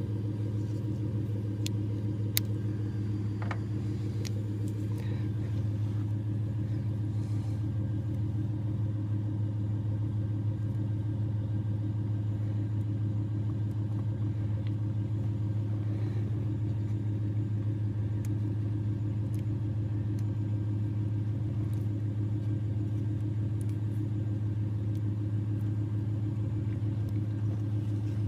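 2010 Ford F-150's 5.4-litre V8 idling, the pitch and level holding steady with no hunting. A few faint clicks sound about two to four seconds in.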